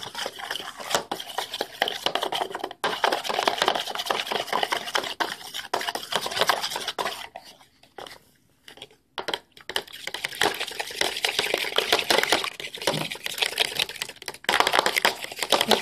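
Metal fork beating a raw egg in a plastic bowl: rapid clicking and scraping strokes against the bowl. They stop for about two seconds around the middle, then carry on.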